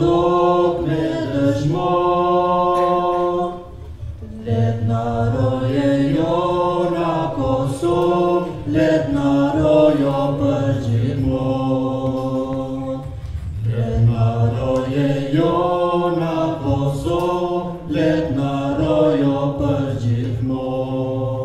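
A group of men's voices singing a slow song in unison, holding long notes in phrases of a few seconds with short breaks between them.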